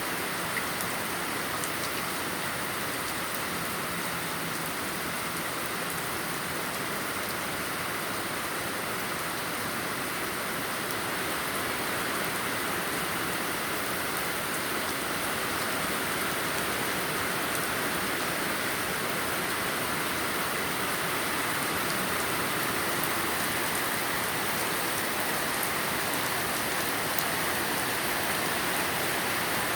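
Heavy rain falling steadily, an even hiss that grows slightly louder toward the end.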